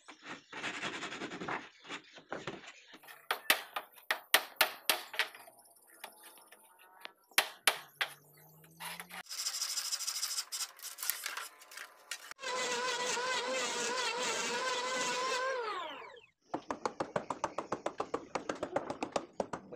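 Hand woodworking on a wooden plank boat: a hand plane scraping along a plank, then scattered sharp knocks. Later a motor hums steadily and winds down, and near the end come quick, even hammer taps on the nails along the hull edge.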